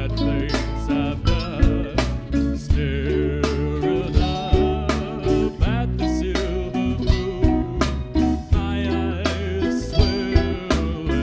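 A band playing live: a steady drum beat over a sustained bass line, with wavering melodic lines above.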